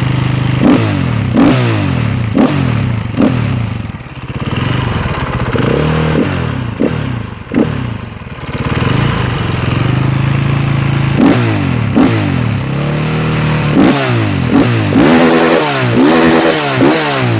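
KTM 500 EXC's single-cylinder four-stroke engine through an Akrapovic exhaust with the dB-killer in, idling and being revved in quick, sharp throttle blips that rise and fall straight back. Towards the end the revs are held high and bounce repeatedly, typical of the engine hitting the rev limiter.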